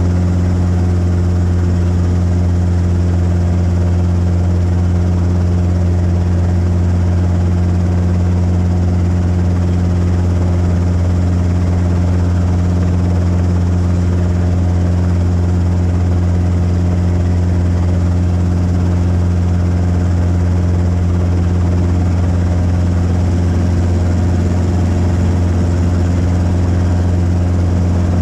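Light two-blade helicopter running on the ground with its rotor turning, heard from inside the cockpit: a loud, steady low drone that holds the same pitch throughout.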